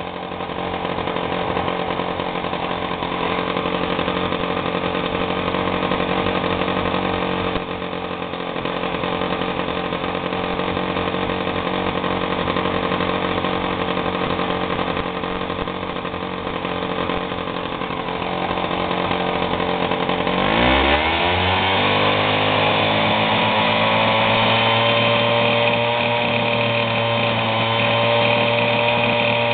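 Piaggio Ciao Px moped's small two-stroke single-cylinder engine, fitted with a reworked piston, running steadily at about 2,700 rpm with the transmission turning. About two-thirds of the way through it revs up sharply and holds a steady higher speed.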